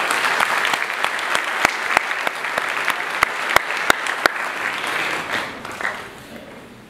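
Audience applauding, with a few sharp single claps standing out, dying away near the end.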